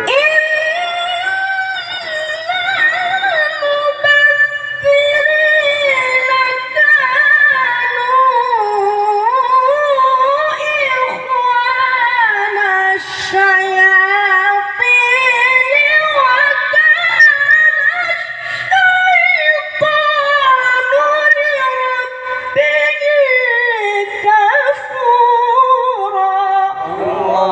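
A qari's high voice in Qur'anic tilawah, drawing out a single long melismatic phrase. The pitch winds up and down in fine ornaments with vibrato, with only brief breaths.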